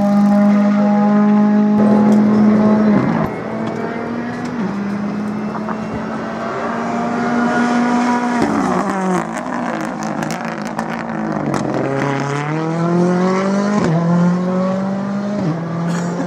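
Ford Fiesta R5 rally car's turbocharged four-cylinder engine at high revs, its pitch climbing and dropping sharply at each gear change. About halfway through the pitch falls away as the car slows, then it climbs again through quick upshifts.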